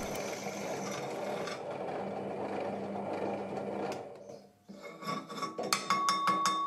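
Bench drill press drilling a metal square tube: a steady whirring cut with a low motor hum for about four seconds, then it stops. A quick series of metal clicks and knocks follows, one ringing on, as the tube is lifted and slid off the drill table.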